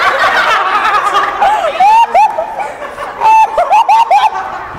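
Laughter in short, high-pitched bursts, over other voices chattering.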